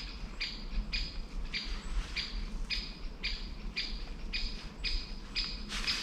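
A bird calling over and over in the forest: short, flat, high notes repeated evenly about twice a second.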